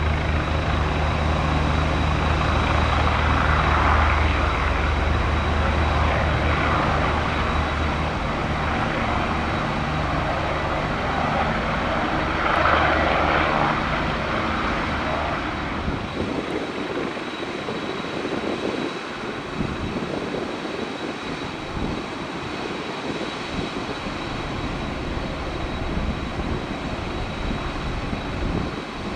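Boeing 767-300ER's jet engines running, a loud, steady rumble with a deep drone. About sixteen seconds in the deep part falls away and a softer engine noise carries on.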